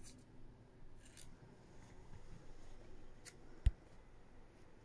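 Faint handling noises from unpacking a smartphone box: paper and cardboard rubbing and rustling, with one sharp knock about three-quarters of the way through.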